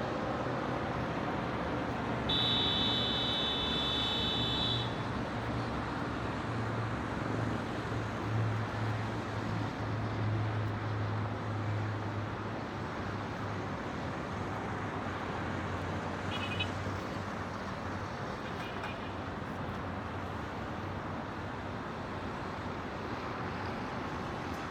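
Distant city traffic: a steady wash of engine hum and road noise. About two seconds in, a brief high-pitched squeal rises above it, and a couple of faint short high sounds follow later.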